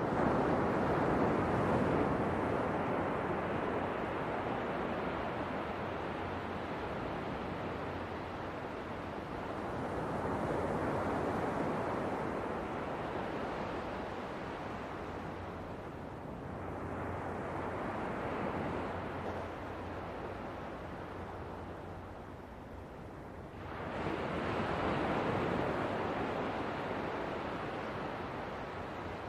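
Ocean waves breaking and washing on the shore, the surf swelling and falling back in slow surges. A wave breaks sharply near the end.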